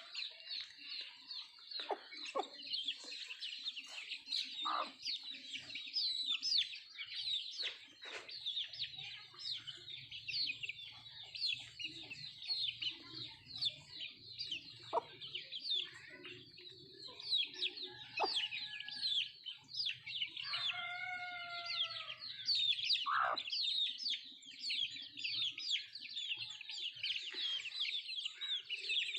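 Native country chickens (nattu kozhi) clucking over constant rapid, high-pitched chirping, with one longer, wavering call about twenty-one seconds in.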